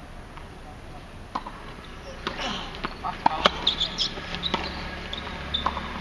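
Tennis balls being struck by rackets and bouncing on a hard court: a string of sharp knocks, most of them from about two to four seconds in.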